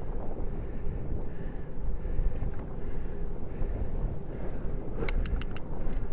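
Wind rumbling on the microphone of a bike-mounted action camera while the bicycle rolls along, with a quick run of about five sharp clicks a little after five seconds.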